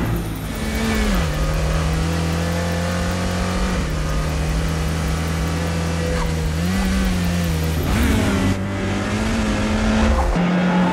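Turbocharged 2.0-litre four-cylinder engine of a Honda Civic Type R prototype running at speed, mixed with background music.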